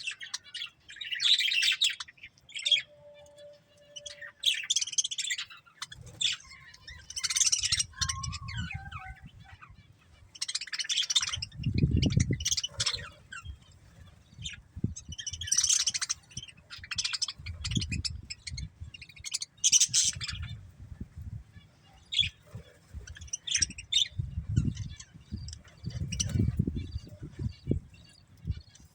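Budgerigars chirping and warbling in repeated short bouts of high, scratchy chatter. From about six seconds in, low rumbles come and go underneath.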